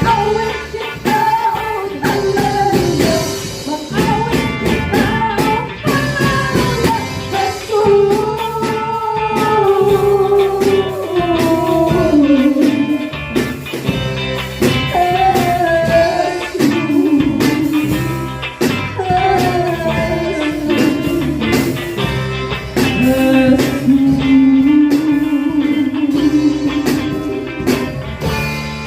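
A live band playing a slow song: a sung or lead-guitar melody rising and falling over guitar and a steady drum-kit beat.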